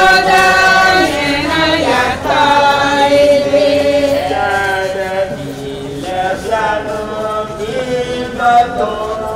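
Choir singing slowly in long held notes, the voices moving to a new chord every second or two.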